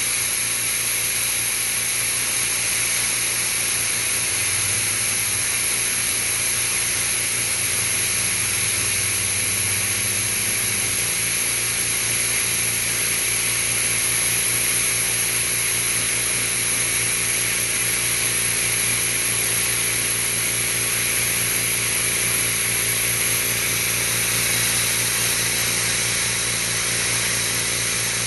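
An air blowgun blowing a continuous, steady hiss of compressed air while the GMC Syclone 6310 oil-free compressor runs underneath with a steady motor hum, trying to keep up with the air the blowgun uses.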